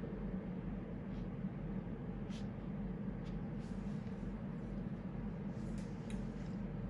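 Steady low hum of room noise, with a few faint, brief scratchy ticks of a fine brush tip writing on watercolour paper.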